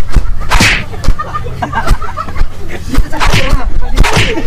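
Loud, excited talking and laughter from a group of people, with several sharp breathy outbursts.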